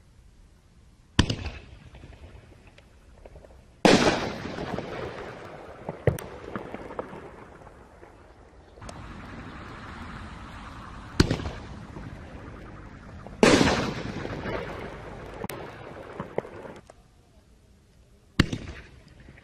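Consumer artillery shells fired one at a time from a mortar tube. A sharp launch report is followed about two and a half seconds later by a louder burst overhead, which trails off over several seconds with fizzing and small pops. This happens twice, with another bang in between, and a fresh launch comes near the end.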